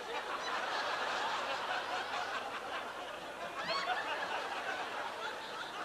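An audience laughing together, swelling just after the start and carrying on.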